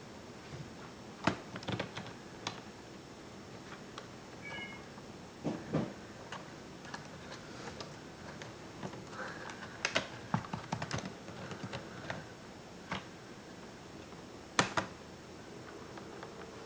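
Scattered sharp clicks and taps of tools and small parts being handled during a ThinkPad R50 laptop teardown, the loudest about a second in, ten seconds in and near the end. Two brief high-pitched squeaks sound around four seconds in and again around ten seconds in.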